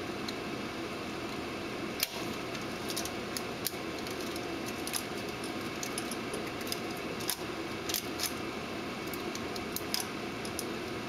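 Irregular small metallic clicks and rattles of hands adjusting and threading film on a Christie P35GPS 35mm film projector, over a steady hum of projection-booth machinery.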